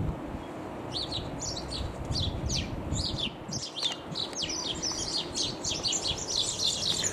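Small birds chirping: many short, high, quickly falling notes that come thicker and faster in the second half, over a steady low rumbling background noise.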